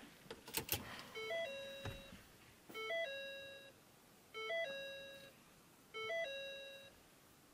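A car's dashboard warning chime sounding after the ignition is switched on: a short three-note ding-dong, repeated four times about every one and a half seconds. A few faint clicks come just before the first chime.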